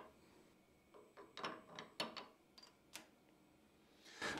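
Light metallic clicks and knocks of a lathe tool holder being lifted off and seated on a quick-change toolpost, with the clamping lever worked by hand. There are about half a dozen short clicks, most of them between one and three seconds in.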